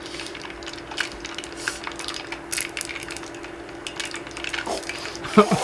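Scattered small clicks and crunches of chopsticks and crisp deep-fried mentaiko being eaten, over a steady low hum.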